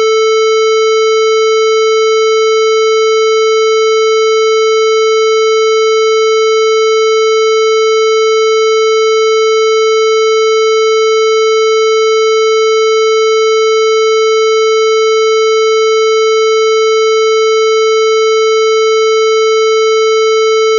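Vocoded electronic tone held at one unchanging pitch, loud and steady, with a hollow, buzzy edge from its overtones.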